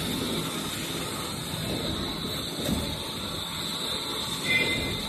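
Steady machinery running noise with a constant high hiss and low rumble, with a brief high tone about four and a half seconds in.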